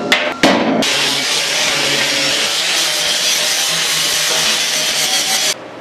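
A few clanks of sheet steel being handled, then a handheld angle grinder running against the steel griddle top for about five seconds, cutting off just before the end.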